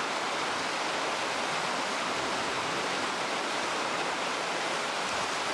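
Steady rush of churning water in an equine water-walker pool as horses wade through it, pushing against the water's resistance.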